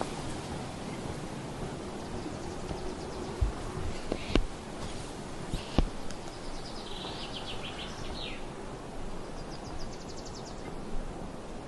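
Outdoor forest ambience: a steady rushing noise with a few sharp clicks a little before the middle, then two rapid high trills from a small animal or bird in the second half, the first lower and louder, the second higher and fainter.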